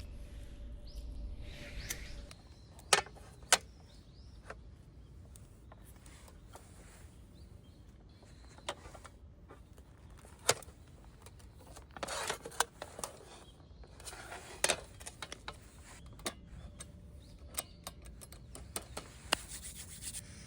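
Things being handled at close range: scattered sharp clicks and knocks, two of them louder a few seconds in, with short stretches of rustling about halfway through.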